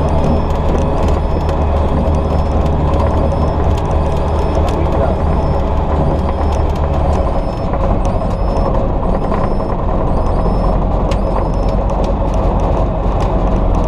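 Ultralight aircraft's engine and propeller running at low power while the plane taxis on grass, heard from inside the cabin. About halfway through, the engine note drops to a lower, slower idle.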